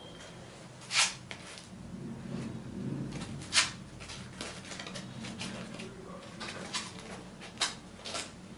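White paper being folded, rolled and pinched by hand: a faint rustle with about four sharp crackles of creasing paper, the loudest about a second in and midway.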